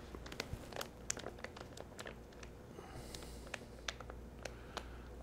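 Faint, scattered crinkles and ticks of a plastic fish shipping bag being handled, over a low room hum.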